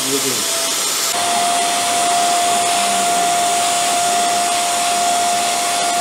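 Electric balloon pump used as a blower, running steadily: a rush of air with a steady whine, which gets louder about a second in.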